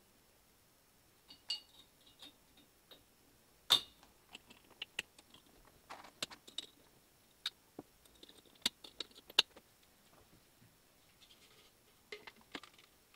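Swing-top beer bottles being closed: ceramic stoppers snapped down on their wire bails and glass bottles knocking, heard as scattered sharp clicks and clacks, the loudest nearly four seconds in and a quick cluster around nine seconds.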